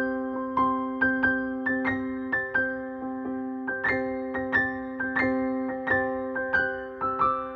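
Background music: a gentle electric piano melody of evenly struck notes, two to three a second, over a sustained chord.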